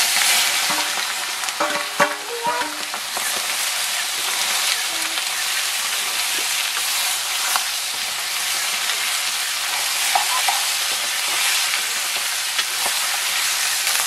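Raw chicken pieces hit hot oil in a wok and start sizzling loudly all at once, then fry with a steady hiss while a metal ladle stirs them, knocking and clinking against the pan a few times about two seconds in.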